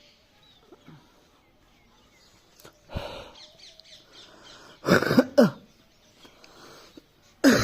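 A person coughing in several loud, harsh bursts, the first about three seconds in and a close pair near the middle, after a quiet opening with faint bird chirps.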